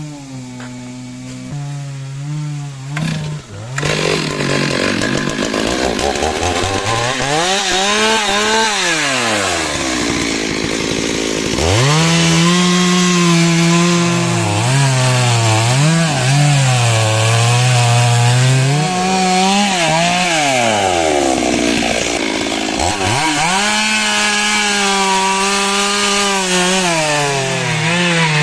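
Stihl chainsaw engine idling briefly, then revving up and cutting wood. Its pitch rises and sags as the chain loads in the cut, and twice drops back toward idle before climbing again.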